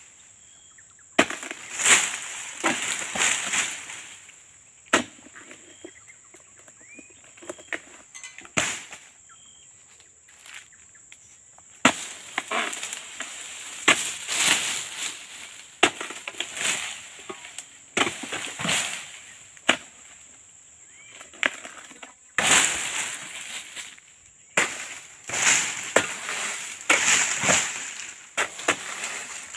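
Long-pole harvesting sickle cutting at oil palm fronds and fruit-bunch stalks in repeated rasping strokes, with the fronds rustling and thrashing and a few sharp cracks. The strokes come in uneven bunches with short pauses between them.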